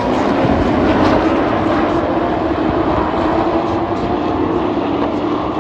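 Race truck engines running at speed around the oval, a loud steady drone.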